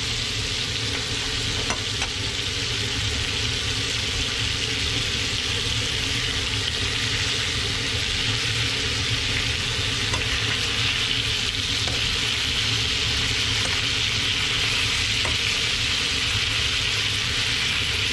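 Thick cobia fillets frying in butter in a pan: a steady sizzle with a few faint clicks.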